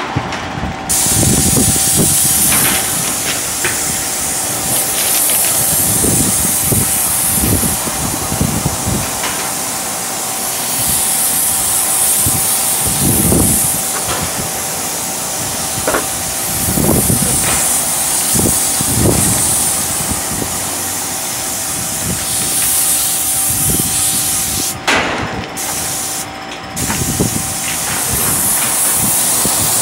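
Airless paint sprayer on a pole extension spraying paint onto siding: a steady hiss from the spray tip that breaks off twice for a moment near the end as the trigger is released, then resumes.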